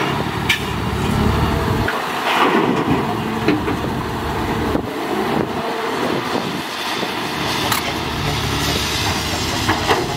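A Caterpillar 320C hydraulic excavator's diesel engine running under load, with soil and rocks dropping from its bucket into a dump truck's steel bed and a few sharp knocks.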